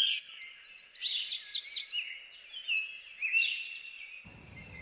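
Small birds chirping and singing in quick high notes and falling trills. A low background rumble comes in abruptly near the end.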